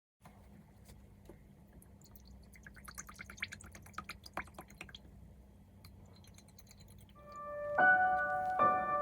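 Faint low hum with a quick run of light clicks and taps, then soft piano music fades in about seven seconds in, with chords struck roughly once a second.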